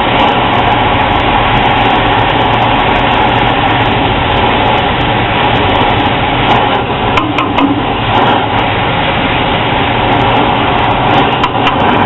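Brazing torch flame hissing steadily on a copper refrigerant line joint, heating it until it glows red, over a steady low mechanical hum.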